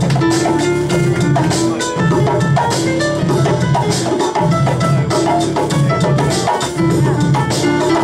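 Live band music with a Latin feel: hand drums such as congas and djembe keep a steady rhythm under violin and other melody instruments.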